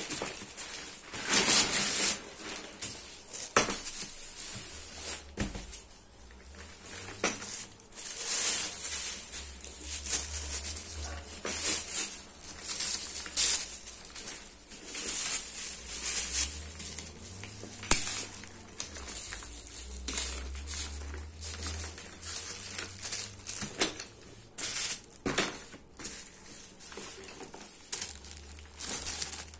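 Clear plastic wrapping crinkling and rustling as it is pulled off and handled around a square delivery backpack, with a few sharp knocks as the bag is turned over.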